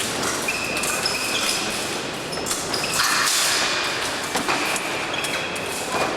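Busy fencing-hall ambience during épée bouts: steady hall noise with scattered short clicks and taps, and several brief high-pitched tones at different pitches.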